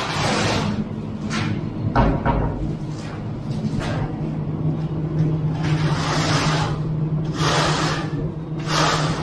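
A metal screed straightedge scraped and dragged through wet concrete in repeated strokes, each a rough swish, over a steady low hum.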